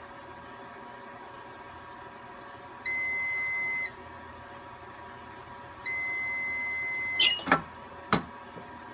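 Heat press timer beeping twice, a one-second beep and then a longer one, signalling that the pressing time is up. The second beep cuts off as the clamshell press is lifted open, followed by a few mechanical clunks from the upper platen.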